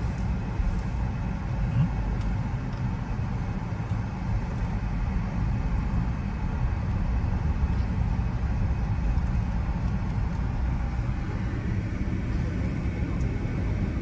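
Steady low rumble of car road noise, with no sudden events.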